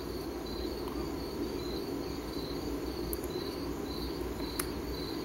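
A cricket chirping steadily, about two short high chirps a second.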